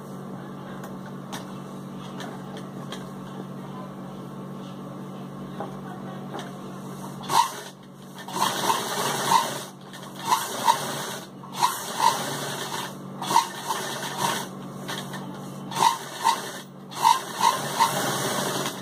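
A sewing machine stitching in short runs with brief pauses, starting about seven seconds in, as a patch is guided along its outline. Before that only a steady low hum is heard.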